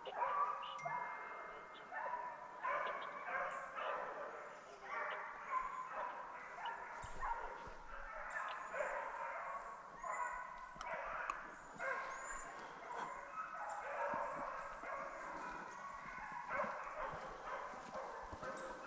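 A pack of deer hounds baying on a drive, several dogs giving mouth at once in an unbroken run of overlapping calls, the sign that they are running a deer's trail.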